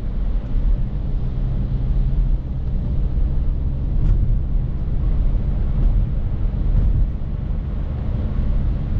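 BMW F30 335i's turbocharged 3.0-litre N55 straight-six running steadily at low speed, heard from inside the cabin, under a steady hiss of tyres on a snowy, slushy road. Two faint ticks come about four and six seconds in.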